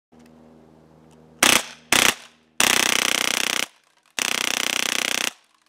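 CO2-powered airsoft M4 pistol with a Wolverine Inferno pneumatic engine firing BBs on full auto: two short bursts, then two longer bursts of about a second each, every burst a rapid, even string of shots. A faint hum comes before the first burst.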